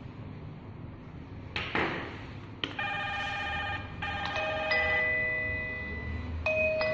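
Electronic doorbell chime: after a brief rustle and a click, bell-like electronic tones ring out, a pulsing phrase and then descending 'ding-dong' notes that fade slowly. A new chime starts near the end.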